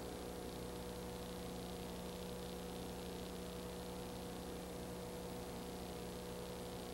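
Steady electrical hum over a constant hiss, with no other sound, typical of the soundtrack of a transferred silent home movie.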